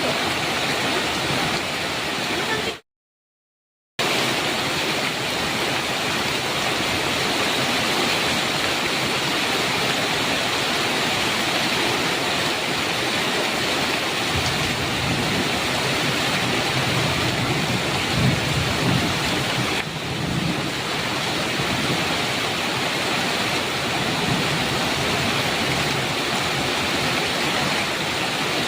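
Heavy rain drumming steadily on a metal roof, with a low rumble of thunder rolling for several seconds about halfway through. The sound drops out completely for about a second near the start.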